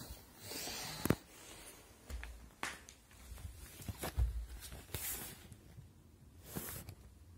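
Camera handling noise: rustling with scattered sharp knocks and low thumps as the phone is moved down and set at floor level on a wooden parquet floor, the loudest knock about a second in.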